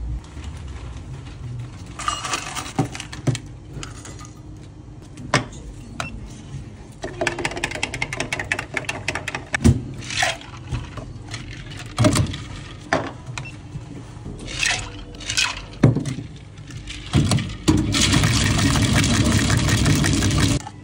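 Drink making at a café counter: scattered knocks, clicks and scrapes of plastic cups, a scoop and a shaker being handled and set down on the counter, then near the end about three seconds of hard, steady rattling as a plastic drink shaker is shaken.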